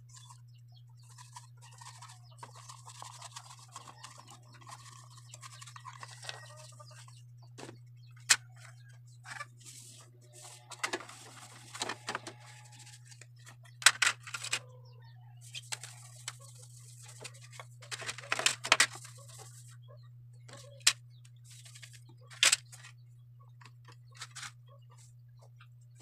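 Scattered clicks and knocks of plastic ceiling fan blades and the fan's motor housing being handled and wiped with a cloth, over a steady low hum.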